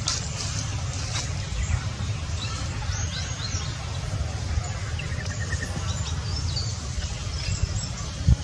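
Outdoor ambience: a steady low rumble with scattered short high chirps and squeaks over it, and a single sharp knock near the end.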